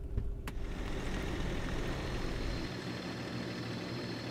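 A car door latch clicks open about half a second in. A steady hiss follows, under a low rumble like a car running, and the deep part of the rumble drops away about two-thirds of the way through.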